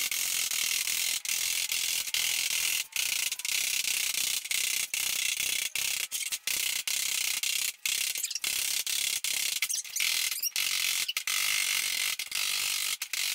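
Rapid, dense ratchet-like clatter broken by many short gaps, from hand-bending the flange of an aluminum sheet with a hand seamer.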